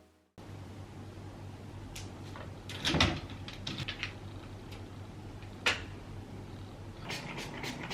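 Scattered clicks and knocks of objects being handled in a small room, over a steady low hum. The loudest is a thump about three seconds in, with a sharp click near six seconds and a quick run of light clicks near the end.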